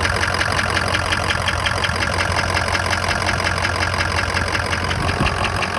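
2003 Ford F-250's 6.0 L Power Stroke V8 diesel idling with a fast, even clatter. Under it is a soft knock from the right side near the alternator, which a diesel mechanic traced with a stethoscope to above the pistons near the injectors.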